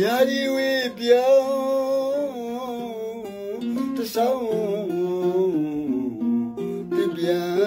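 A man singing a Burmese song to mandolin accompaniment, his voice gliding and wavering over the plucked strings.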